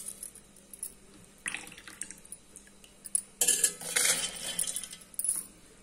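Handfuls of wet, soaked split lentils dropped into a stainless-steel mixer-grinder jar, a few short rattling spills, the longest and loudest about halfway through.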